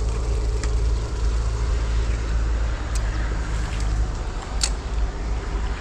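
Steady wind rumble buffeting the microphone over an even hiss, with a few sharp ticks, the loudest near the end.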